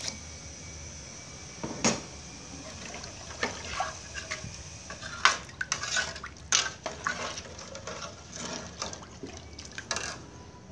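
A ladle stirring soup in an aluminium pot, knocking and clinking against the pot's sides a dozen or so times at irregular intervals, with the liquid sloshing.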